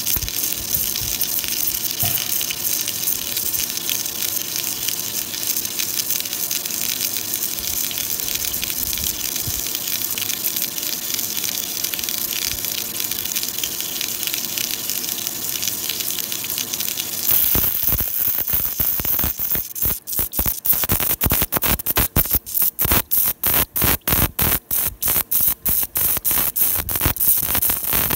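CNC lathe machining a steel hex nut: a steady hiss of machine and coolant, which changes about two-thirds of the way in to a rapid pulsing, several beats a second, as the tool cuts intermittently and throws sparks.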